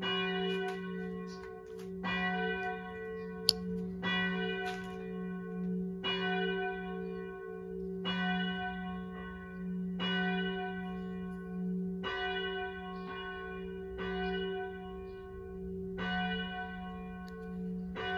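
A large bell tolling, struck about every two seconds, each stroke ringing on into the next over a steady low hum. A single sharp click comes about three and a half seconds in.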